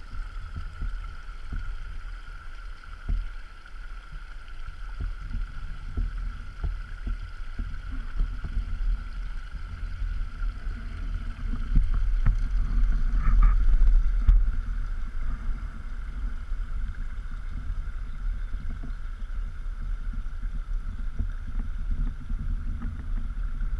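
Kayak on calm water: small knocks and drips against the hull, under a steady wind rumble on the microphone that swells for a couple of seconds about halfway through. A faint steady high hum runs underneath.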